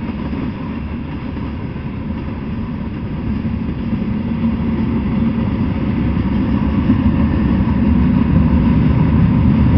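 Freight train of covered hoppers and gondolas rolling past: the steady noise of steel wheels on the rails, growing louder toward the end.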